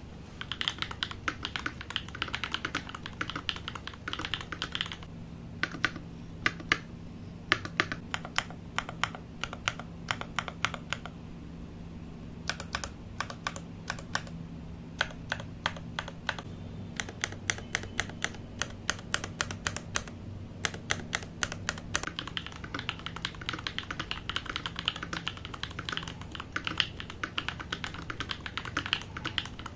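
Custom mechanical keyboard with CMK keycaps being typed on: fast runs of keystrokes, with slower separate key presses in the middle stretch. A faint steady low hum sits underneath.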